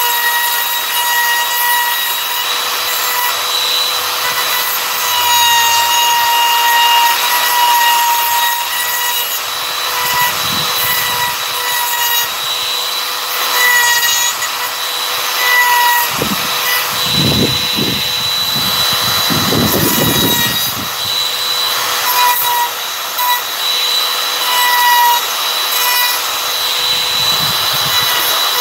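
Compact palm router running at high speed and cutting into a wooden cutout: a steady high-pitched whine over rough cutting noise, with a few rougher, lower grinding stretches around the middle.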